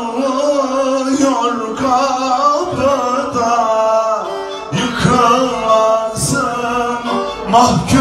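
Live Turkish folk music: a man singing into a microphone over bağlama and kemane, with a wavering, bending melody line and scattered davul drum strokes.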